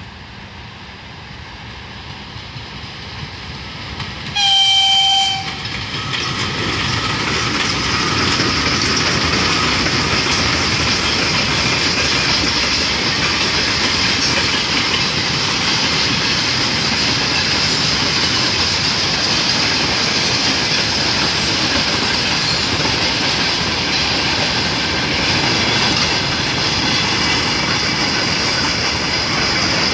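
A VL11 electric locomotive with a freight train comes up, getting louder, and sounds one short horn blast about four seconds in. Then the freight wagons roll past close by with steady wheel and rail noise.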